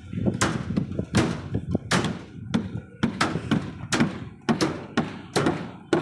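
A run of sharp knocks, about two a second and unevenly spaced, each with a short ringing tail.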